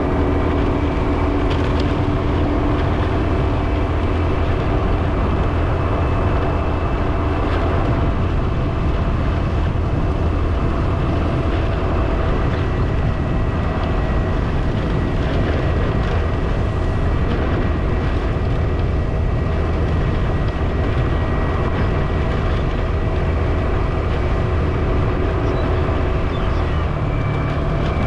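Steady engine and road noise of a vehicle being driven along a road, heard from on board, with faint steady whines over a heavy low rumble.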